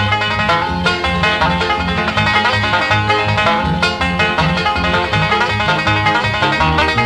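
Background music: bluegrass with plucked banjo over a steady, rhythmic bass line.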